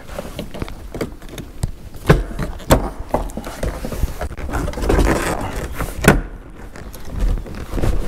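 A car's plastic interior side trim panel being handled and pressed into place around a seat belt: irregular taps and rustling, with three sharper knocks, about 2 s, just under 3 s and just after 6 s in.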